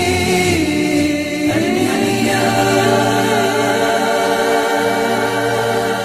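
A nasheed sung by layered male voices with no instruments. The melody moves until about two and a half seconds in, then settles into one long held chord.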